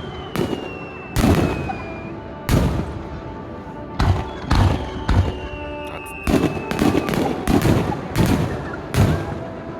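Aerial fireworks bursting: about a dozen sharp bangs in quick, uneven succession. Twice a thin whistling tone glides slowly down in pitch over a second or two.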